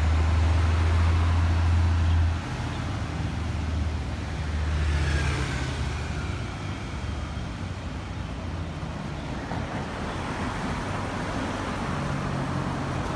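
City street traffic. A low engine rumble drops away after about two seconds, and a motorbike passes about five seconds in, over a steady hum of traffic.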